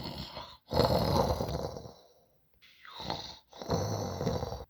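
Loud snoring: four long breaths that alternate softer and louder, and the last one cuts off suddenly.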